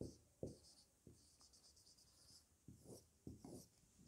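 Whiteboard marker writing on a whiteboard: a series of short, faint squeaky strokes.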